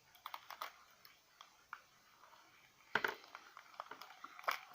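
Spoon and bowl being handled as a thick, sticky mixture is stirred: faint scattered clicks and scrapes, with a louder clack about three seconds in and another near the end.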